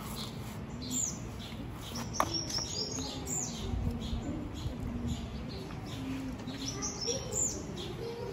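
Small birds chirping, many short high calls repeating throughout, with a single light tap about two seconds in.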